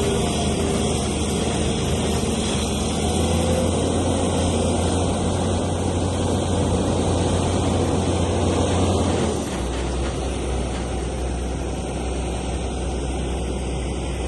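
Heavy machinery engine running steadily. About nine and a half seconds in, it drops to a lower pitch and gets slightly quieter, as if easing off to a lower speed.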